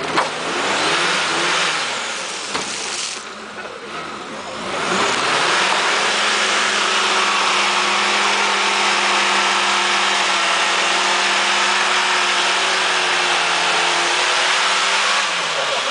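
Suzuki 4x4's engine revving hard with its wheels spinning in deep mud as it is hauled out on a tow line: uneven surges of revs at first, then held at steady high revs for about ten seconds, dropping near the end.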